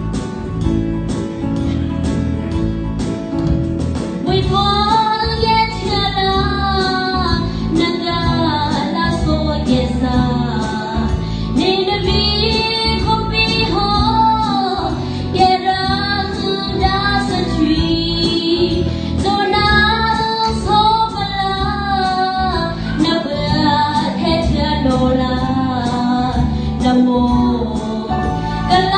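A woman singing a Zotung song into a microphone, accompanied by an electronic keyboard. The first few seconds are keyboard alone; then the voice comes in and carries the melody.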